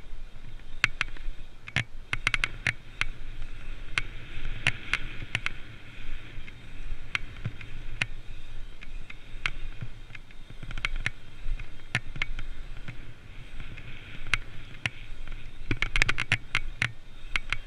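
24-inch BMX race bike rolling fast over asphalt pumptrack rollers: steady tyre rumble and wind, with frequent sharp, irregular rattling clicks from the bike that bunch up about two seconds in and again near the end.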